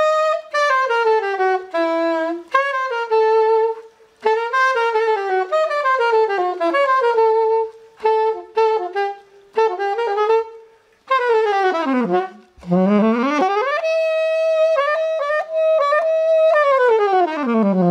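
Nickel-plated Ostrava alto saxophone played solo: short melodic phrases of held notes with brief breaks between them. About two-thirds through comes a quick run down to a low note and back up, then a long held note that slides down to a low note at the end.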